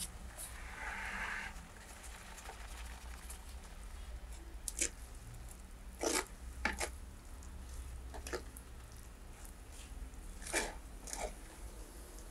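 Hand work during cooking: scattered light clicks, taps and rustles, with a brief rustling near the start, over a steady low hum.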